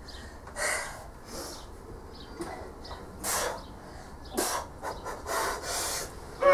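A woman breathing hard, with sharp, forceful breaths about once a second as she strains to bend and snap a Grade 5 steel bolt by hand. A falling groan of effort comes at the very end.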